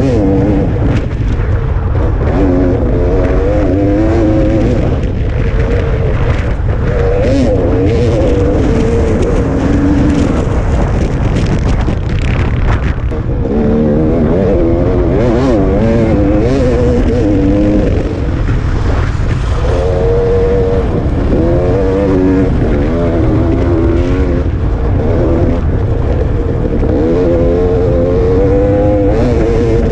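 Dirt bike engine at race pace, its note rising and falling constantly with the throttle and easing off in brief lulls every few seconds, over a steady low wind rumble on the microphone.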